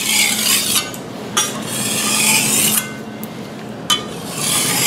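Thin steel cleaver blade drawn in light strokes across a 1200-grit DMT diamond sharpening plate: three smooth scraping hisses of about a second each, with a short tap between strokes.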